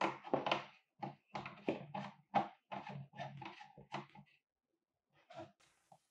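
Flexible gooseneck arm of a ring light creaking in a quick series of short strokes as it is bent and twisted by hand, then a couple of faint clicks near the end.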